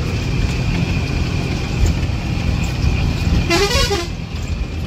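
A bus engine runs with a steady low rumble, heard from inside the bus. About three and a half seconds in, a vehicle horn gives one short toot with a wavering pitch.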